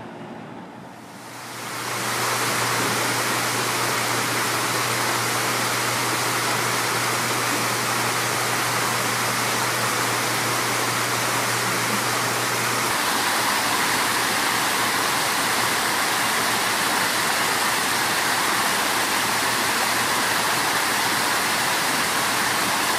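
Water splashing and rushing steadily from a garden pond's fountain and small rock cascade, coming in about two seconds in. A low steady hum runs under it for the first half.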